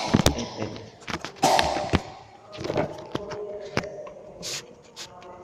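A series of irregular knocks and clicks.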